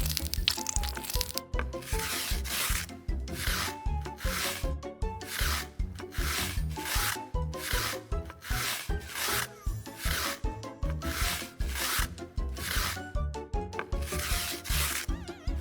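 Rhythmic rubbing strokes, about two a second, with background music underneath.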